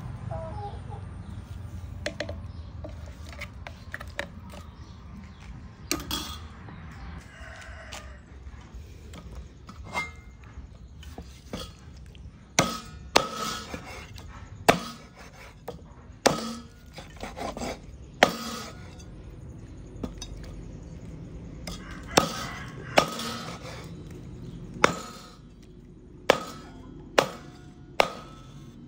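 Cleaver chopping raw chicken on a thick wooden chopping block: about a dozen hard, sharp chops at uneven intervals, starting about halfway through.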